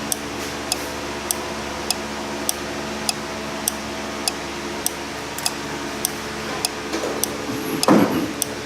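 Automotive auto shutdown relay clicking about every 0.6 seconds as a relay tester cycles it on and off during a test it passes, over a steady hum. A louder rustling thump comes near the end.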